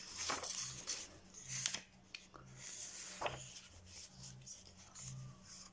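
Pages of a paperback colouring book being handled and turned: soft paper rustling and rubbing under a hand, with sharper page flicks about a third of a second, a second and a half, and three seconds in.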